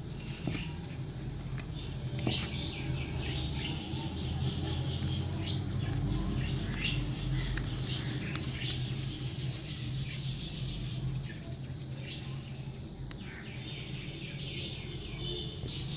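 Hands working soft wheat dough into small balls and rolling them in dry flour, a faint soft rubbing and patting, over a steady low hum. A busy high twittering sits in the background from about three seconds in until about eleven seconds in.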